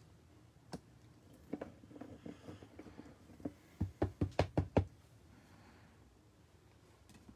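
Rigid clear plastic trading-card holder being handled and tapped on a tabletop: scattered light clicks, then a quick run of about six sharp taps about four seconds in.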